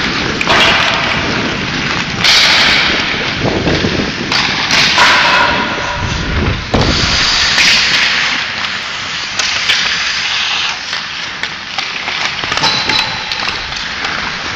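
Hockey skate blades scraping and carving on rink ice in repeated surges every couple of seconds, with a few sharp knocks of stick on puck.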